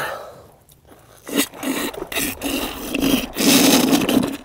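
A tlachiquero's hand scraper (raspador) scraping the inside of a maguey's cavity in short, rough strokes, starting about a second and a half in, with a longer stroke near the end. This scraping reopens the plant's wound so that it keeps giving aguamiel.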